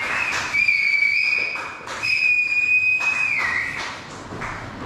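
A person whistling loudly in two long, high held notes, the second sliding down at its end, with a few scattered taps.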